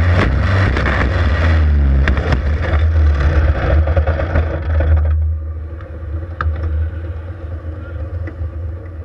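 Quarter midget race car's engine running hard while the car hits the wall and goes over onto its roll cage, with sharp knocks of the impact. About five seconds in the engine noise drops sharply, leaving a quieter low drone.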